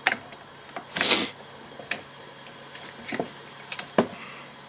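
Scattered light clicks and knocks of tool parts being handled and fitted during reassembly of a circular saw, with a brief scraping rustle about a second in.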